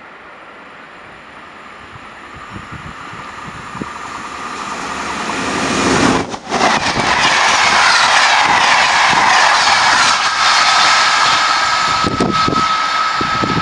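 A train approaching along the line, growing steadily louder over the first several seconds into a loud rushing rail noise. From about two-thirds of the way in, a steady high whine sits on top of it.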